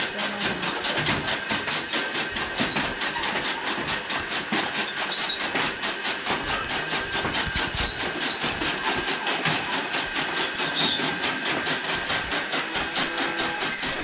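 A machine running steadily with a fast, even pulsing beat, about four to five beats a second, over a constant hiss.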